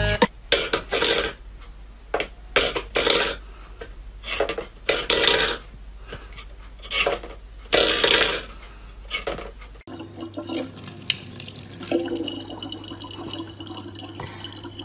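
Short, irregular scraping and clattering bursts from stainless steel bowls on a wooden floor. About ten seconds in this gives way to a thin stream of tap water running steadily into a plastic bottle.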